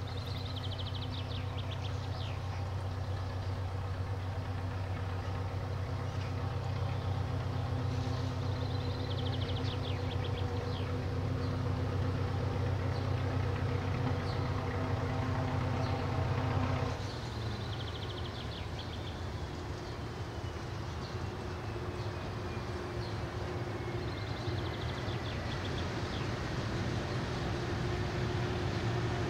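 SM42 diesel shunting locomotive (Fablok 6D) hauling a freight train as it approaches, its diesel engine drumming with a steady low note. The engine note drops suddenly a little past halfway, then the sound grows louder as the locomotive comes closer.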